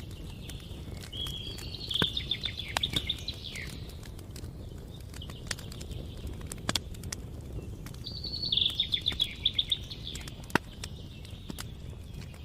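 Campfire crackling, with scattered sharp pops over a low rumble, while a songbird sings a short, fast trilled phrase twice: about two seconds in and again about eight seconds in.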